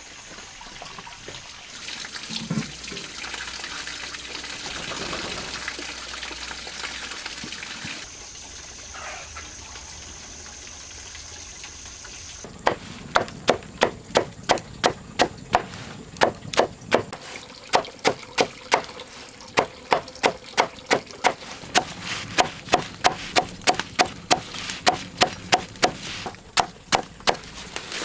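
Rhythmic chopping, a blade striking wood about two to three times a second with short pauses, starting about twelve seconds in. Before it there is only quiet outdoor ambience with a steady high tone.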